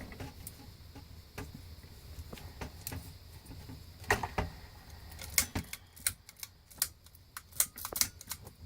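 Irregular clicks, taps and knocks of small hard objects being handled and moved about, more frequent in the second half.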